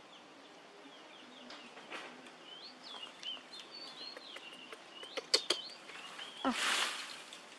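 Small birds chirping, short high chirps scattered throughout. A few sharp clicks come a little past five seconds in, and a brief burst of rustling, the loudest sound, comes about six and a half seconds in.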